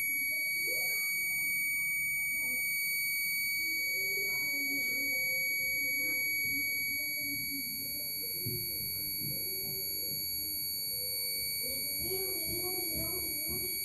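Electronic security-alarm hooter sounding one continuous, steady high-pitched tone. The shutter alarm has been triggered by the shutter being opened and keeps sounding until it is deactivated.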